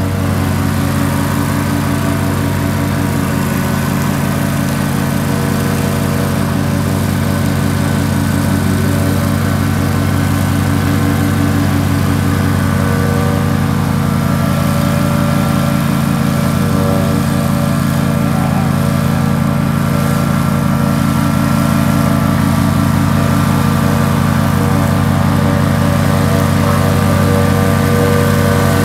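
The engine of a Stella X-Rot remote-controlled tracked slope mower running steadily at an even speed, with no change in pitch or level.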